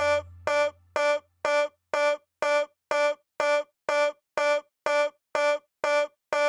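One short, pitched synth note repeating on its own about twice a second, in the same pitch each time, with the rest of the house groove dropped out. A low bass tone fades away over the first second or two.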